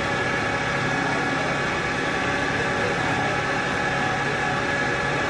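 An impact pulveriser, a wood-powder grinding mill, running steadily with its electric drive motor: a loud, continuous machine noise with an unchanging hum and whine.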